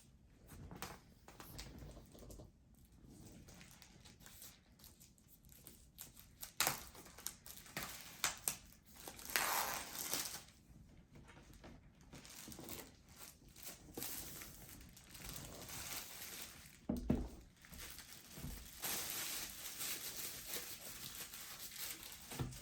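Packaging being opened and handled: plastic and paper crinkling and tearing in irregular stretches, with a few sharp clicks and knocks.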